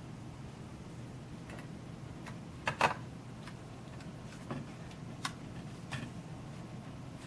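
Small screwdriver and screw clicking and tapping against a Sony Mavica camera's housing as a screw is fitted back in: a few scattered light clicks, the loudest a quick double click about three seconds in.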